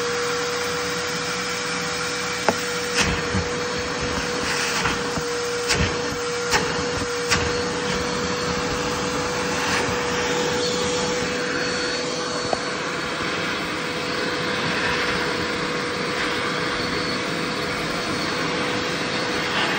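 Vacuum cleaner running steadily, its hose sucking up a heavy, soaking-wet t-shirt, with one constant tone over the airflow noise. Several sharp knocks come in the first half as the fabric is drawn into the hose.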